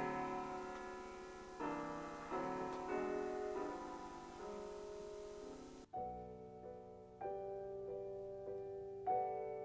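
Slow piano music, chords struck about once a second and left ringing. About six seconds in it cuts abruptly to a cleaner piano passage with the background hiss gone.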